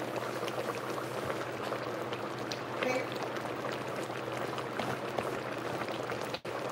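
Pot of curried long squash stew simmering on an induction hob: a steady fine crackle of small bubbles popping over a low steady hum.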